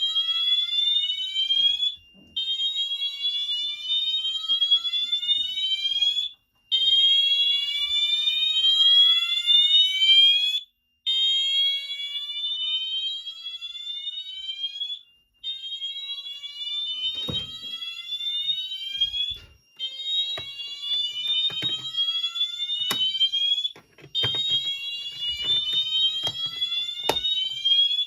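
Fenwal-branded Wheelock MT fire alarm horn sounding the whoop tone after a pull station was pulled. Each whoop is a loud sweep rising in pitch, about four seconds long, repeated with brief gaps between them. A few faint knocks come in the second half.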